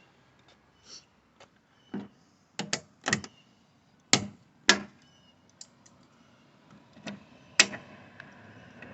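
Sharp clicks and knocks at an irregular pace as the broken fender retaining pins are worked out of their holes in the Jeep's body. The loudest knocks come about four seconds in, again half a second later, and once more near the end.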